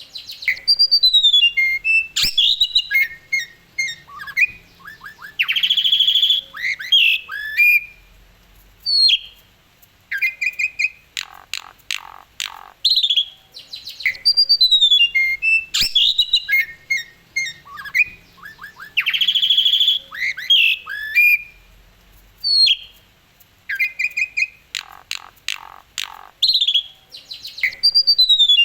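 Asian pied starling (jalak suren) singing loudly in a varied run of whistles, sliding notes, rattling trills and harsh squawks, in phrases with short pauses. The same sequence of phrases comes round again about every 13 seconds.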